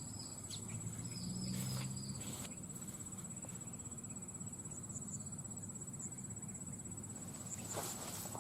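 Steady high-pitched insect trill, like a cricket or cicada. A short run of quick falling chirps comes about a second in, and a few rustling steps near the end.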